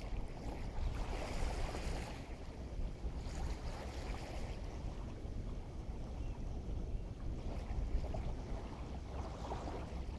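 Wind buffeting the microphone as a steady low rumble, over surf washing in, with swells of hiss a few seconds apart.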